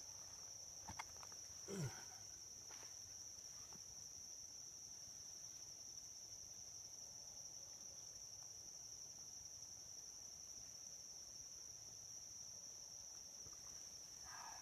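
Insects droning at one steady high pitch, the night-or-woods chorus of crickets or katydids, with a few light knocks in the first two seconds.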